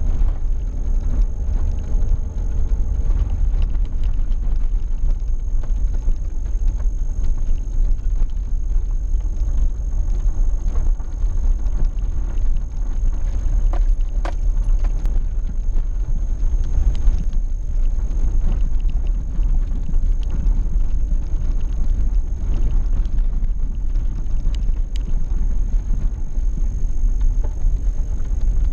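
Vehicle driving on an unpaved dirt track, heard from inside the cab: a steady low rumble of engine and tyres on the rough surface, with a few sharp knocks and rattles, the clearest about halfway through.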